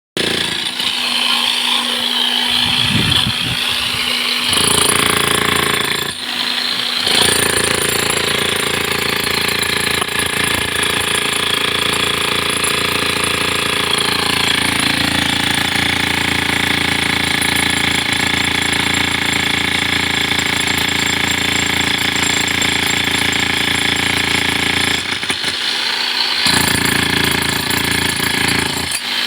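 Power tool working a reinforced concrete slab, running loud and continuous with brief dips about six seconds in and again near the end.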